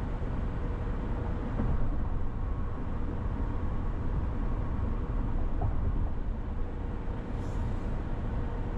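Steady road and tyre noise with a low hum from a car cruising on a freeway at highway speed, heard from inside the car, with a brief higher hiss about seven and a half seconds in.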